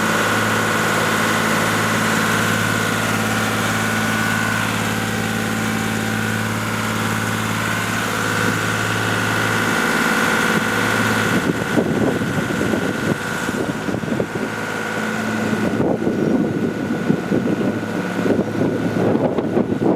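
Canal boat's engine running steadily. About halfway through its low hum drops away, and wind buffets the microphone for the rest.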